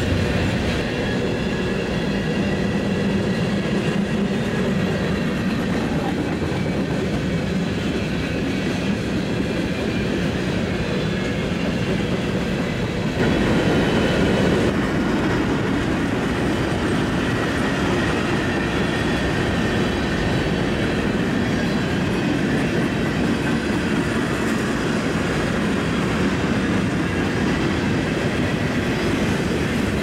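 Long mixed freight train of tank cars, covered hoppers and gondolas rolling steadily past, its steel wheels running on the rails; about 13 seconds in the sound steps up louder for a second or two.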